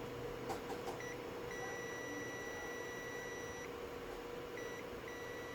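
Digital multimeter's continuity buzzer beeping on and off as the probes touch a DC-DC converter rail: a short beep about a second in, a long beep of about two seconds, then two short beeps near the end, with a few light probe clicks just before. A continuous beep here marks the rail as shorted to ground.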